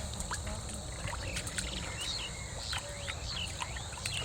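Small birds chirping over and over in short calls that slide up and down in pitch, over a steady low rumble.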